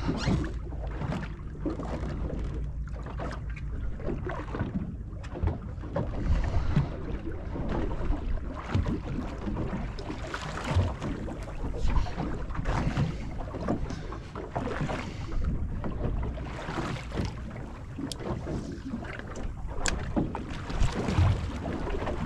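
Wind buffeting the microphone and water lapping against the hull of a small fishing boat at sea, with scattered small knocks and a couple of sharp clicks near the end.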